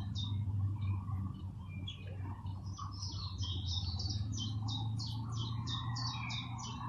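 A small bird calling a fast run of short, high, falling chirps, about three or four a second, with a pause of a couple of seconds before it starts again, over a low steady hum.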